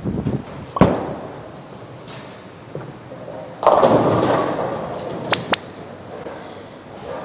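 Bowling ball thudding onto the lane about a second in, then pins crashing a few seconds later as the ball hits the rack, the crash dying away over about a second, followed by two quick clacks.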